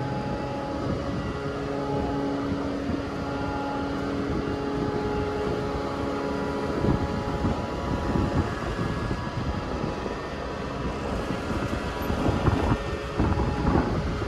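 A docked ferry's engines running with a steady hum. Wind gusts rumble on the microphone from about seven seconds in.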